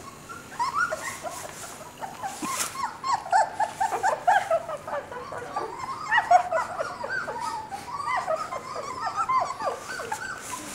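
Four-week-old Border Collie puppy whimpering: a steady run of short, high squeaks, several a second, each falling in pitch.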